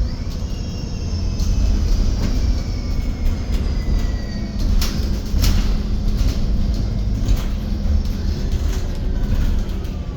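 MAN Lion's City 12 EfficientHybrid CNG city bus heard from inside while under way: a heavy low rumble of drivetrain and road, with thin whines that slowly fall in pitch and scattered rattles and knocks from the body.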